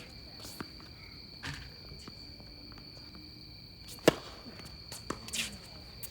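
A single sharp tennis-ball impact about four seconds in, with a few fainter clicks and shoe scuffs around it, over a steady high-pitched whine.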